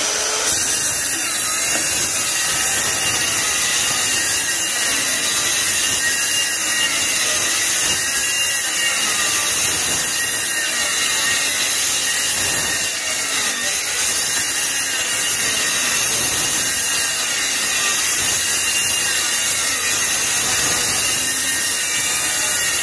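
Handheld electric circular saw running continuously while cutting through the oak staves of a whiskey barrel, a steady high whine whose pitch wavers as the blade loads in the wood. The sound dips briefly about halfway through, then carries on.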